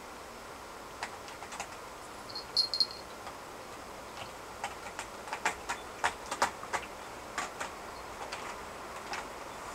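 Irregular light clicks and scratches from a kitten's claws on a carpeted cat tree as it climbs and bats a dangling toy mouse, busiest in the middle of the stretch. A brief high-pitched squeak sounds about two and a half seconds in.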